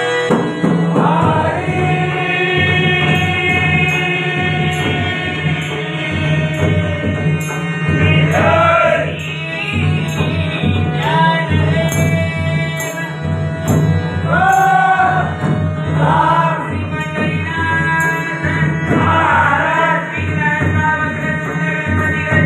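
Group devotional bhajan singing in Marathi/Malvani style, with hand drums and rhythmic hand clapping and a steady reed-organ drone under the voices.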